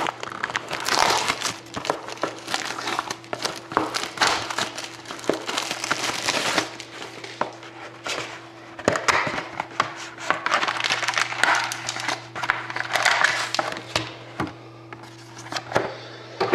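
Plastic wrapping crinkling and cardboard packaging being handled and torn open, in irregular rustling spells with many sharp clicks and snaps.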